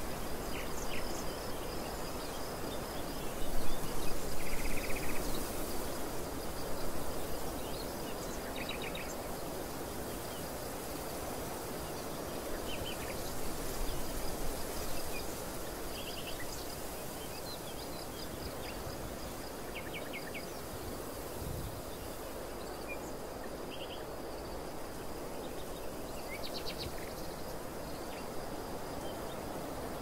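Wind blowing across a field of green barley, gusting now and then, with a steady high-pitched insect trill and scattered short bird chirps.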